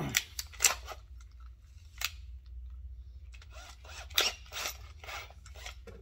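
Small hand tools and the parts of a diecast toy car being handled: a few sharp clicks, then a run of short scraping strokes from about three seconds in.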